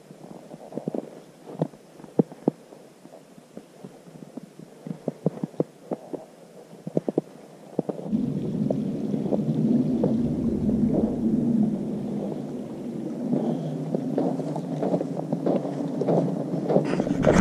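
Crunching and crackling of snow under movement along a snow-covered road: scattered sharp crackles at first, then from about eight seconds a louder, dense rumbling crunch.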